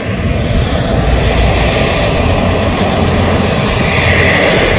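Dassault Rafale fighter jet's twin jet engines on landing approach: a loud jet roar with a high whine that falls slowly in pitch.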